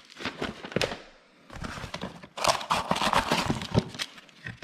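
Cardboard boxes and plastic packaging being handled while a door handle set is unpacked: irregular rustling, scraping and light knocks. The sounds pause briefly about a second in, then come back busier, with denser crinkling and scraping.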